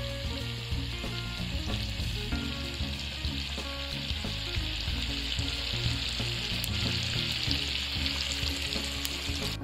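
Banded bullfrog pieces deep-frying in a wok of hot oil, a steady sizzle from the bubbling oil that grows a little louder in the second half.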